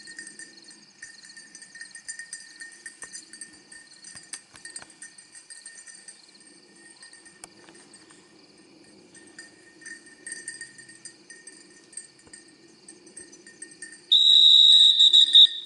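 Field insects, crickets among them, chirring steadily and faintly. About a second and a half before the end, a dog-training whistle gives one loud, long, steady high blast that cuts off sharply, the usual recall signal for a young gundog.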